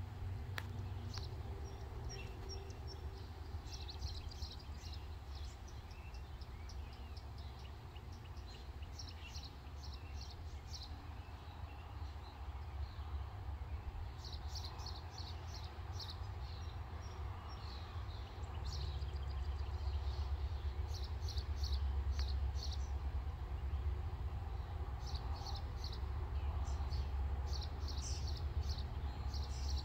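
Songbirds chirping in short, quick series, over a low rumble that grows louder about two-thirds of the way through.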